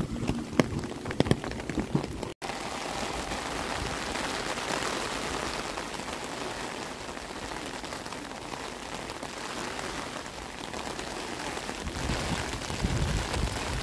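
Steady rain falling. For the first two seconds or so, a JR Kyushu 813 series electric train moving away can be heard, with clicks from its wheels on the rails, before the sound cuts off abruptly.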